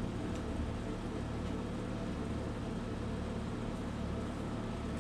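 A steady low mechanical hum, with a faint click right at the start.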